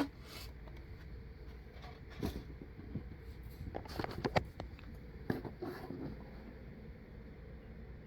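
Handling noise: scattered light clicks and knocks, several in a quick cluster around the middle, over a low steady hum.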